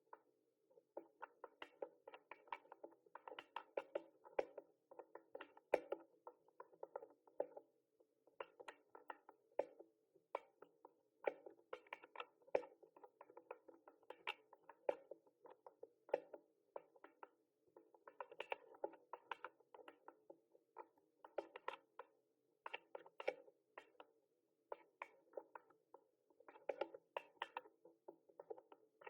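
Mechanical keyboard being typed on, rapid key clicks in runs of a second or two with brief pauses between them.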